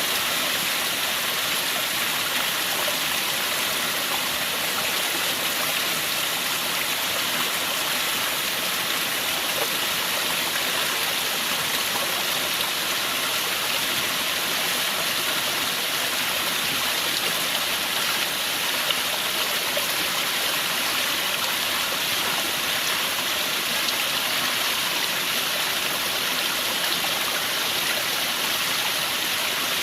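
Flowing water of a stream rushing and splashing in a steady, even hiss with no breaks.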